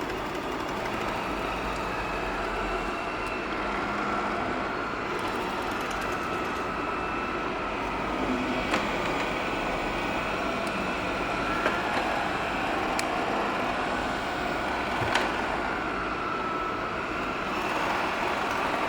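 Xiaomi Robot Vacuum E10 running, a steady motor whir with a faint whine that wavers slightly in pitch, fitted with its 2-in-1 dust compartment and water tank. A few sharp clicks fall through it.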